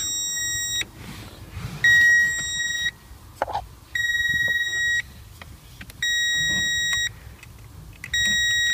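Power Probe Hook circuit tester beeping with its probe tip on the blown side of a fuse: a steady high beep about a second long, repeating every two seconds, with a few faint clicks of the probe between the beeps.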